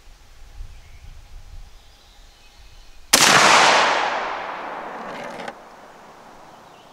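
A single shot from a Stoeger M3500 12-gauge shotgun firing a rifled slug, loud and sudden about three seconds in, its echo dying away over the next two seconds before cutting off abruptly.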